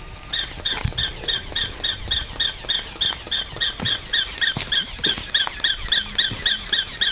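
Battery-powered toy West Highland White Terrier giving a rapid, very regular run of short high squeaky yaps, about four a second, which starts just after the opening and stops near the end.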